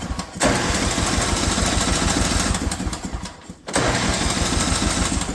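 Snowthrower's small petrol engine being cranked over in long bursts, a fast even chugging, with short breaks between tries; it does not catch, so the engine turns over but will not start.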